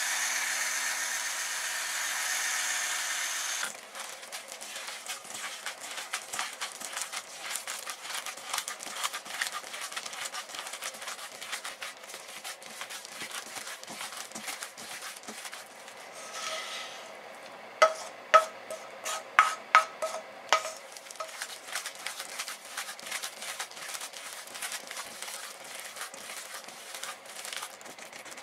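Cole & Mason electric salt and pepper mills grinding for about three and a half seconds, a steady motor hum under the grinding. Then a plastic-gloved hand kneads minced hamburger mixture in a stainless steel bowl, a long run of soft squishing clicks. About two-thirds of the way through come five or six sharp knocks that make the metal bowl ring.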